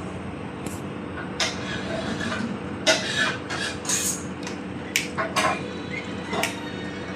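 A series of irregular sharp clinks and knocks of hard objects, about seven of them, over a steady low hum.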